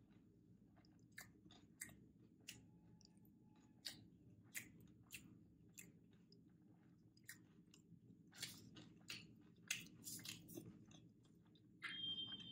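Close-miked chewing of a mouthful of wrap with the mouth closed: quiet, irregular wet clicks and smacks, busier in the last few seconds. Near the end, a brief louder scrape as a pair of wooden chopsticks is rubbed together.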